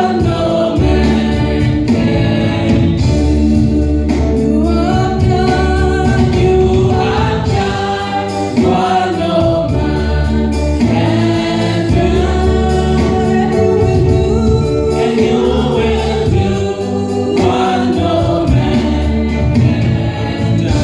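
Gospel music with a choir singing over a sustained low accompaniment.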